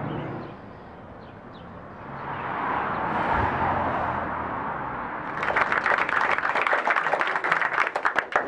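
A vehicle passing on a street, swelling and fading, then an audience applauding from about five and a half seconds in.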